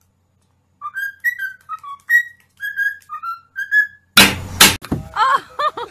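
Cockatiel whistling a tune: a run of clear pitched notes, some gliding up or down, for about three seconds. A little past four seconds a loud, noisy burst lasts about half a second, followed by a few short pitched calls near the end.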